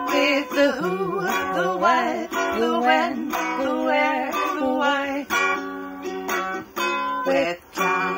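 Homemade intro song: a voice singing over a strummed string instrument.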